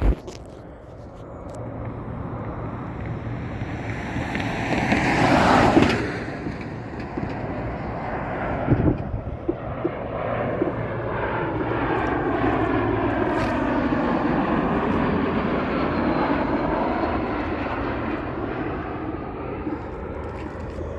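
Jet airliner engines passing close by: the engine noise swells to its loudest about six seconds in and drops away, then a long rumble with a slowly sweeping tone builds again and fades toward the end. There is a short knock about nine seconds in.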